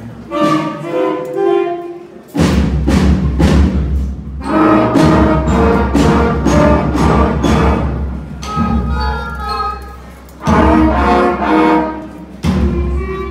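Fifth-grade school concert band playing, with flutes, saxophones and other wind instruments sounding together. Loud full-band passages alternate with quieter ones.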